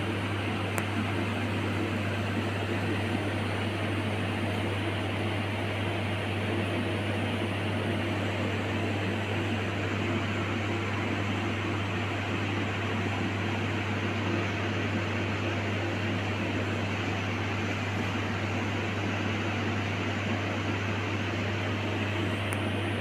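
A fan-driven appliance running steadily: a constant low hum under an even hiss.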